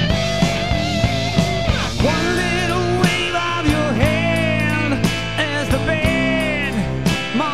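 Live rock band playing an instrumental break: an electric guitar lead with bent, wavering notes over bass and drums.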